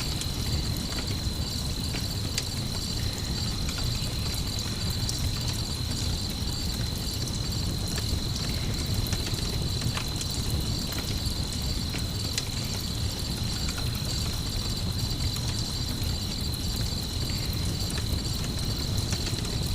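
Night ambience of crickets chirping in a steady, unbroken high trill, over a low continuous noise with scattered small crackles from a campfire.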